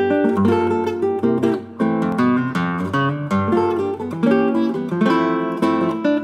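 Solo nylon-string classical guitar, built by luthier Marcel Reis, fingerpicked in bossa nova style. Chords and a thumbed bass line are plucked in quick succession, with brief dips in level between phrases.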